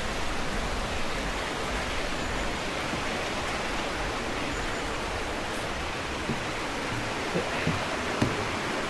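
Mountain stream water rushing steadily over rocks in a gorge, a constant even hiss. A couple of soft knocks near the end.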